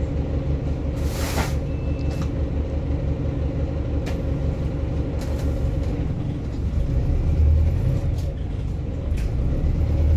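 Cabin sound of a Volvo B5TL double-decker bus: the diesel engine and running gear give a steady low rumble with a hum. A short sharp hiss of air comes about a second in, and a few light rattles and clicks follow. The rumble grows louder about seven seconds in.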